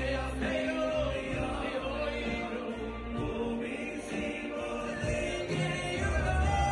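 Live Jewish music: a band with a strong bass line accompanying male voices singing together, a lead singer joined by many voices.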